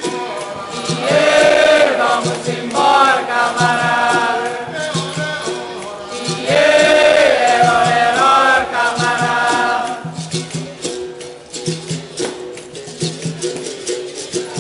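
Capoeira roda music: berimbaus with caxixi rattles keep a steady rhythm while the group sings the chorus response twice. From about ten seconds in, only the instruments play.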